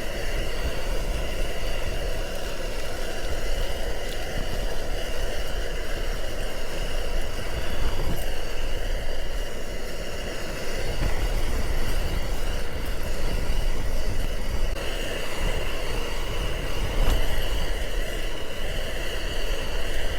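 Strong wind buffeting a backpacking tent: a continuous rushing rumble that swells in gusts.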